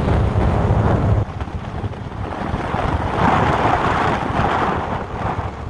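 Wind buffeting the microphone on a moving boat: a low rumble that drops away about a second in, then a rushing swell that rises and fades.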